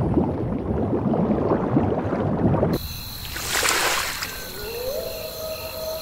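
Cartoon sound effects: dense underwater bubbling and gurgling that cuts off sharply a little under three seconds in. A brief whoosh follows, then a long tone that slides up and holds.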